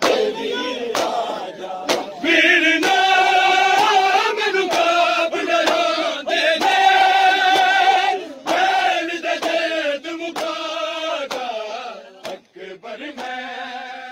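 Large crowd of men chanting a mourning lament (noha) in unison while beating their chests, with sharp chest slaps about once a second keeping the beat. The chanting gets quieter near the end.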